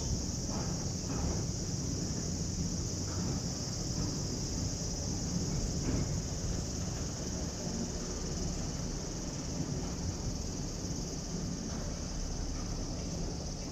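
A steady, high insect chorus over the low, even rumble of a slow-moving freight train of Nippon Steel's Kurogane Line running past, with a few scattered knocks from the wheels and wagons.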